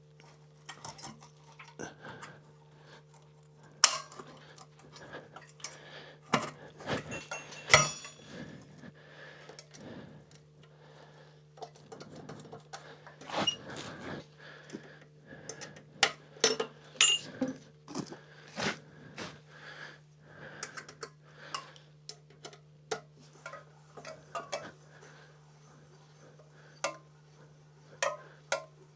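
Metal hand tools such as wrenches clinking and knocking as they are handled and set down: irregular sharp clicks and clanks, one ringing briefly about eight seconds in, over a steady low hum.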